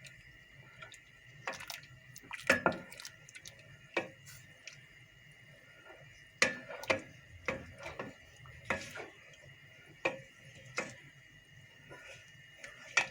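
A spoon stirring syrup in a cooking pot, knocking against the pot's side in irregular clinks about once a second.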